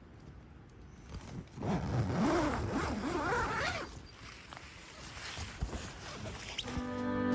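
A zipper being pulled in one long rasping stroke of about two seconds, its pitch wavering as the pull speeds up and slows. Background music with steady held notes comes in near the end.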